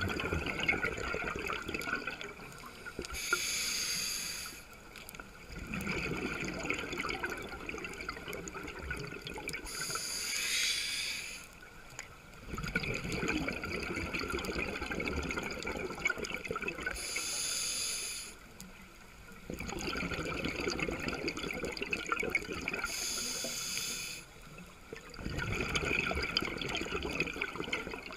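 Scuba regulator breathing underwater, heard close up: a short hissing inhale, then several seconds of bubbling exhaust from the exhale. The cycle repeats about four times, once every six to seven seconds.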